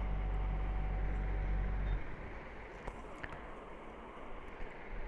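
A steady low hum that cuts off abruptly about two seconds in, leaving a faint even background noise with a couple of small clicks.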